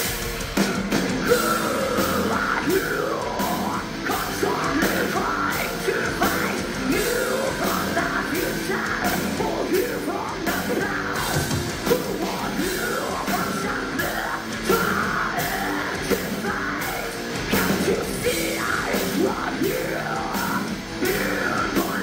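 Metal band playing live: distorted guitars, bass and drums with a woman's vocals, partly yelled, over the top. The full band kicks in just as it begins.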